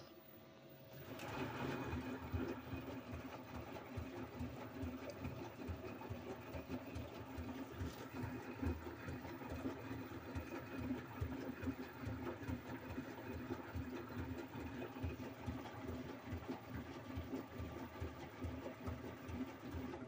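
LG front-loading washing machine in its rinse: the drum turning with a steady motor hum while foamy water and laundry slosh and splash inside, a rapid uneven churning. It starts about a second in.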